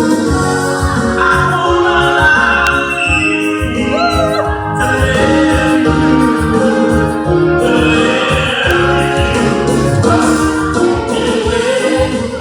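Live pop music: a singer's voice held on long notes over keyboard chords and a steady beat.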